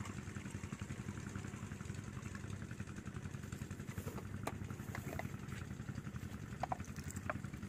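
Small 5 HP single-cylinder diesel pump-set engine idling steadily while its centrifugal water pump is being re-primed. A few light clinks come in the second half.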